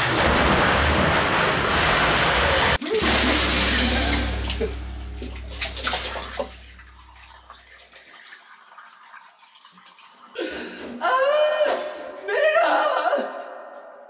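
Water spraying hard onto a person's face and splashing, a loud rushing hiss that dies away about seven seconds in. Near the end a voice cries out several times.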